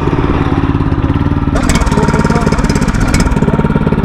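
Small petrol engine mounted on a single-rail monorail cart running steadily at a fast idle, a quick even chugging like a lawn mower's.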